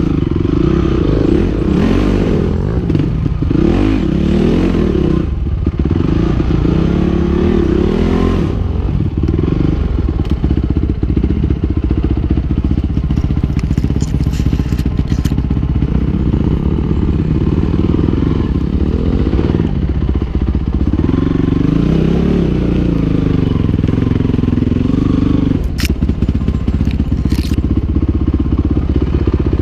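2008 Honda CRF450R's single-cylinder four-stroke engine running under the rider, revving up and down in bursts over rocky ground. A couple of sharp knocks come near the end.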